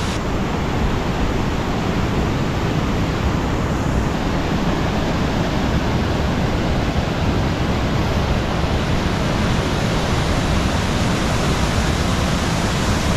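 Steady, loud rushing of Bridal Veil Falls, a tall waterfall, together with the creek cascading over the rocks below it.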